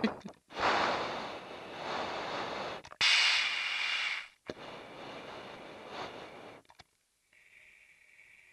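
Breathing through an MBU-12/P pilot's oxygen mask: three long noisy breaths, the middle one a louder, sharper hiss. A faint steady high tone near the end.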